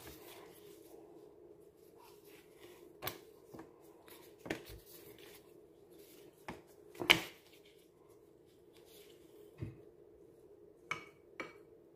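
Scattered light knocks and clicks of food-prep handling on a pastry mat, the loudest about seven seconds in, then two short clinks of a metal spoon scooping cheese filling from a bowl near the end. A steady low hum runs underneath.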